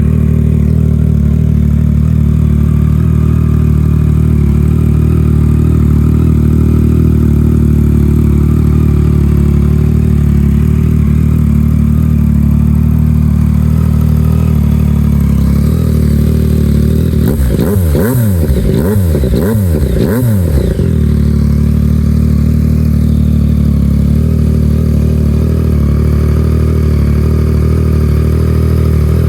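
Yamaha MT-09's inline three-cylinder engine idling steadily through an aftermarket 3-into-1 race-style exhaust. About two-thirds of the way through it is blipped several times in quick succession, each rev rising and falling, then settles back to idle.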